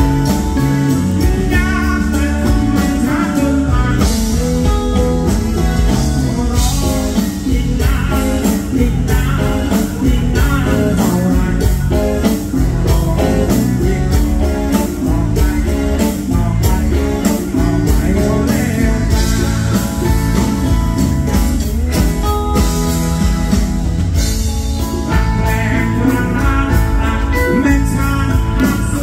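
Live band music: electric and acoustic guitars and drums playing steadily, with a man singing into the microphone.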